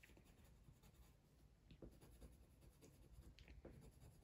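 Faint scratching of a coloured pencil on paper in short, uneven strokes while colouring in.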